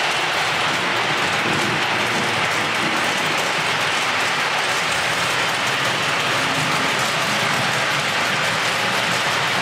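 Model train cars rolling past close by on the layout's metal track: a steady, unbroken clattering rumble of small wheels and running gear.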